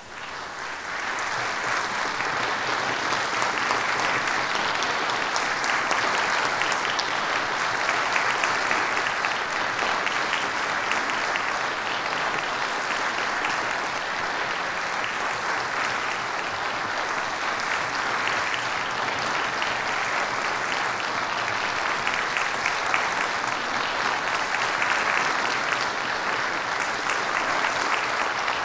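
Concert audience applauding: the clapping breaks out suddenly, swells within about two seconds into a dense, steady ovation and keeps going.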